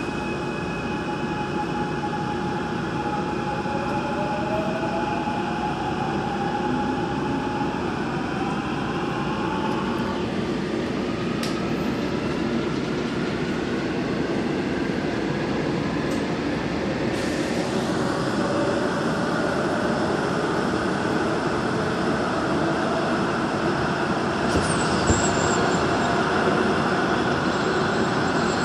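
Gwangju Metro Line 1 train running through a tunnel, heard from inside the car: a steady rumble of wheels on track under a motor whine that rises steadily in pitch as the train picks up speed. A few sharp clicks, and a louder knock near the end.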